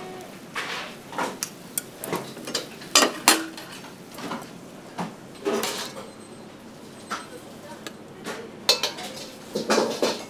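Kitchen clatter: pans, dishes and utensils clinking and knocking at irregular moments, with two louder knocks about three seconds in and another cluster near the end.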